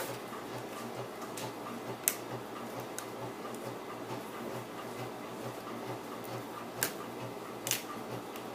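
A few sharp clicks and taps from hands working on a laptop's screen assembly while the tape over the display cable connector is pulled back, the loudest about two seconds in and two more near the end, over a steady low background noise.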